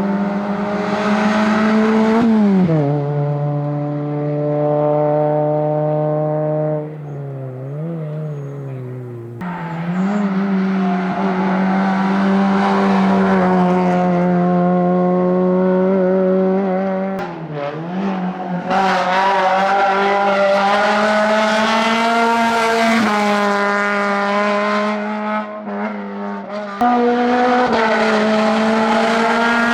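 Rally car engine running hard at high revs, holding a steady note for several seconds at a time. The pitch drops about two and a half seconds in, around eight seconds and near eighteen seconds, and the sound jumps suddenly at about nine and a half and twenty-seven seconds.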